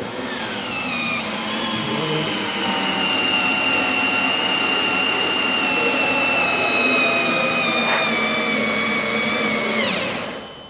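Cordless drill running continuously with its long bit in the timber of a wooden rowing skiff, the motor whine sinking slowly in pitch as it works under load, then stopping near the end.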